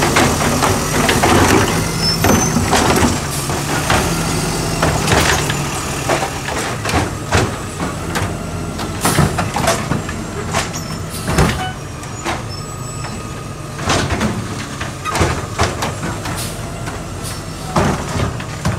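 Natural-gas-powered automated side-loader garbage truck running, with repeated sharp clanks and bangs as its lift arm tips a cart and trash slams into the hopper.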